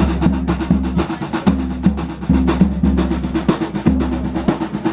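A group of drums playing a fast, steady rhythm: deep bass drum hits under rapid snare strokes.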